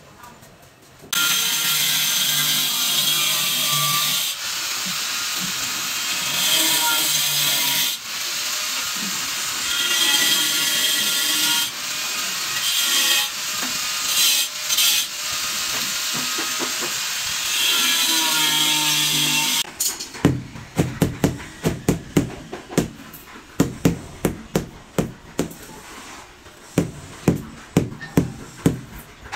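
A power tool runs loudly and steadily for most of the first twenty seconds, then cuts off. After that a rubber mallet knocks again and again on a large floor tile, tapping it down level into its mortar bed.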